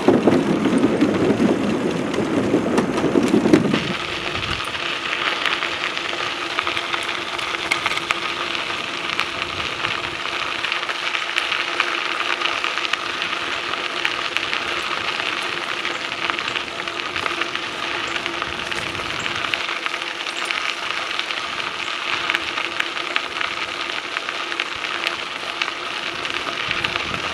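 Bicycle tyres rolling across the wooden plank deck of a trail bridge, a loud low rattle. About four seconds in they roll onto crushed-limestone trail and the sound turns to a steady, fine crunching hiss of tyres on small gravel.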